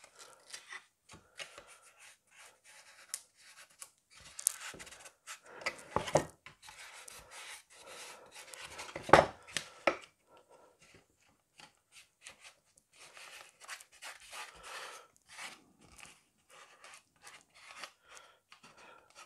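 Hands pressing a small carpet piece into a scale model car's interior: scattered rubbing and scraping with light clicks and taps, and a sharper knock about nine seconds in.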